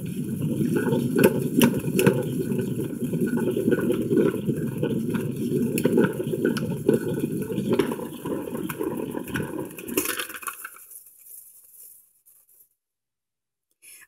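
Plastic salad spinner spinning: a steady whirring rattle with scattered clicks, which slows and dies away about ten to twelve seconds in as the basket stops.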